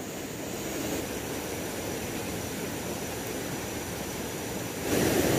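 Shallow rocky river rushing steadily over stones, with a louder rush of rapids near the end.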